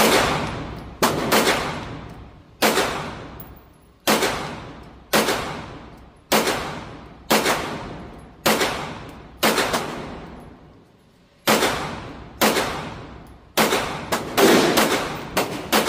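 Shots from an LFA Apollo 11 pistol, fired at a steady aimed pace of about one a second, each with a long echo off the walls of an indoor range. There is a short pause about ten seconds in, then several shots in quicker succession near the end.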